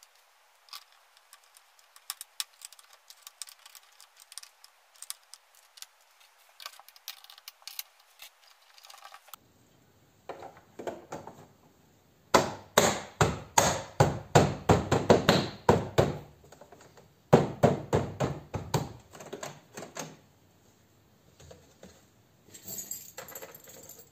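Plastic car door trim panel being fitted: faint clicks and rattles of handling, then about halfway through two runs of sharp knocks, about three to four a second, as the panel is knocked into place on the door.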